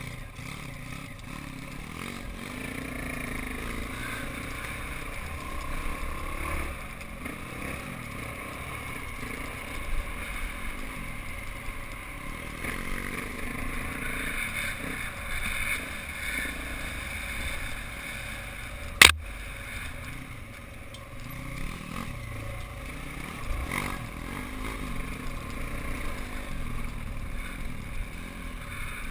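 Off-road motorcycle engine running as the bike rides along a dirt track, with wind noise over it. One sharp knock about two-thirds of the way through.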